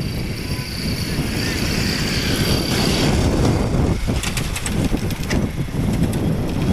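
Wind buffeting the microphone on a moving two-wheeler, over the steady noise of the ride; a short run of light clicks about four to five seconds in.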